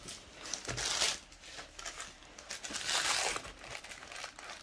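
Plastic bag and tissue paper packaging crinkling as a small leather card case is unwrapped by hand, in two main stretches of rustling.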